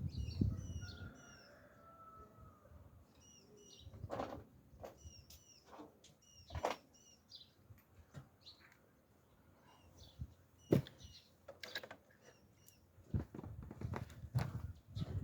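Small birds chirping in short, repeated calls, with a few sharp knocks or clicks scattered among them, the loudest about eleven seconds in, and a low clattering near the end.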